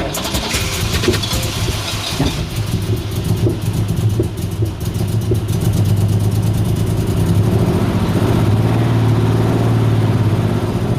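Holden VK Commodore's 202 straight-six running after more than eight years of sitting. It is uneven at first, with irregular ticks, then grows louder and steadier in the second half.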